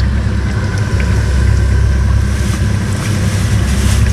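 Flour-dusted King George whiting fillets deep-frying in a pan of hot oil, sizzling, the sizzle growing brighter about two and a half seconds in. A steady low hum runs underneath and is the loudest part.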